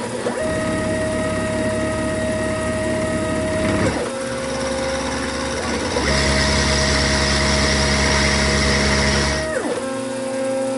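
Milling machine running a 1/4-inch ball end mill over a cast iron block: a steady whine that changes pitch several times with short glides. It turns louder and harsher from about six to nine and a half seconds in.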